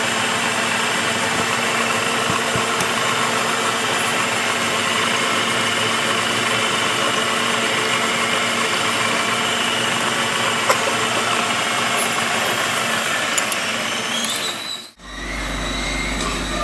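Metal lathe running while a twist drill in the tailstock chuck bores into the end of a rotating metal shaft, a steady machine hum with a whine. A whine rises in pitch over the last few seconds before the sound cuts off abruptly; a different steady low hum follows.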